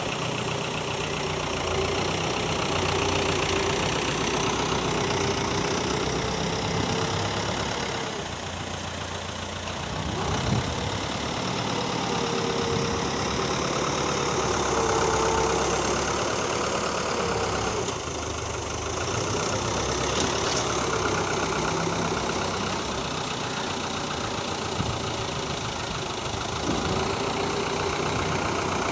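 New Holland 640 tractor's diesel engine running as it pushes soil with its front blade, its level and pitch rising and falling with the load. There is a single sharp knock about ten seconds in.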